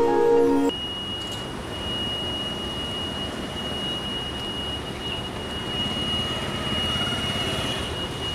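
Intro music chimes cut off just under a second in. Then open-air street ambience, a steady low rumble of traffic with a thin, steady high-pitched whine over it.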